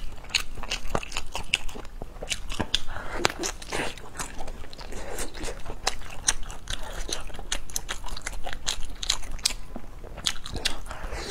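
A person biting into and chewing grilled sausage close to a clip-on microphone: a steady run of irregular mouth clicks and smacks.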